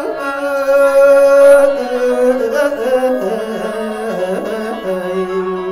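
Khaen, the Lao/Isan bamboo free-reed mouth organ, playing sustained drone chords that step lower about three seconds in and again near the end, accompanying mor lam singing.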